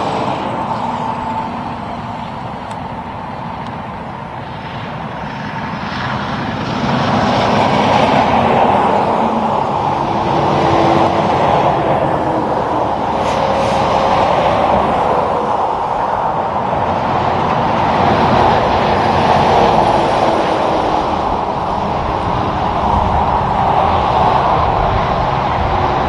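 Highway traffic: semi-trucks passing on a multi-lane road, a continuous roar of tyres and diesel engines. It eases a little, then swells about six seconds in and stays loud.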